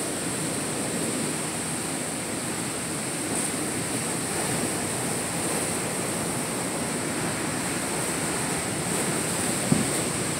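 Surf washing on a rocky shoreline, a steady rush of water noise, with one short click near the end.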